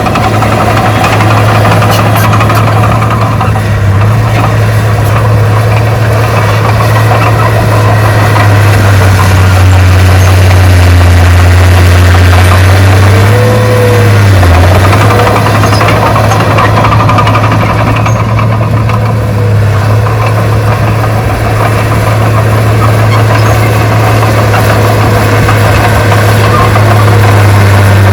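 Heavy diesel engine of earthmoving equipment running steadily, its low drone dipping and rising slightly in pitch a few times.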